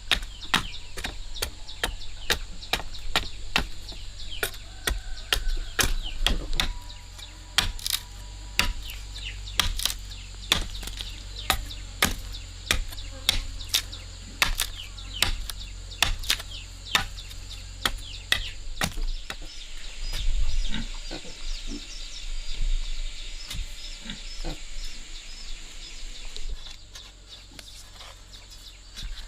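A long series of sharp knocks, one or two a second and slightly irregular, like repeated chopping strikes, with chickens clucking in the background.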